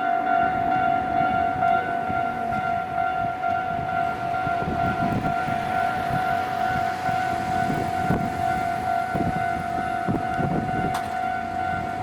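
Railway level-crossing warning alarm sounding one steady ringing tone. From about four seconds in, a train's wheels rumble and thump over the crossing.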